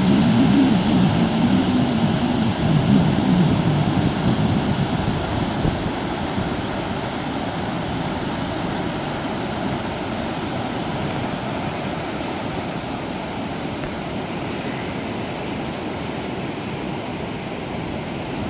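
Ocean surf breaking and washing onto a sandy beach: a continuous rushing noise, louder for the first five seconds or so and then steady.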